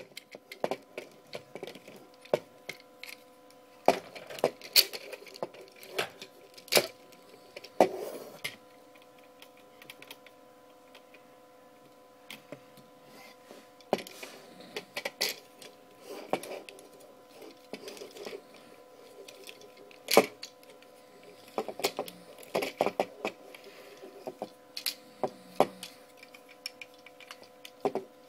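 Plastic parts of a 22-inch Transformers Dark of the Moon Ultimate Optimus Prime toy clicking and knocking irregularly as they are handled and moved, some clicks coming in quick clusters.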